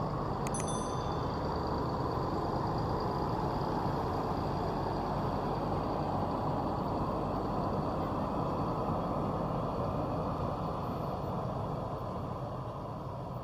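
Intercity bus's diesel engine running as the bus pulls out of the terminal, a steady rumble that eases slightly near the end.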